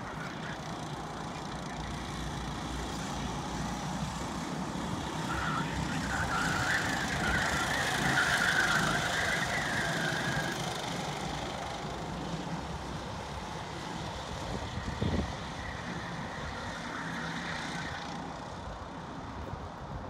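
A pack of 270cc Biz karts racing at a distance, their small engines buzzing together and growing louder as the pack comes nearer in the middle before fading again. A single short thump about fifteen seconds in.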